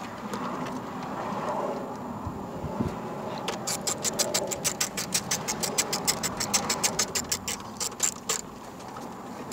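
Ratcheting hand tool clicking rapidly and evenly, about seven clicks a second, while a screw is run back in; the clicking starts a few seconds in and stops near the end.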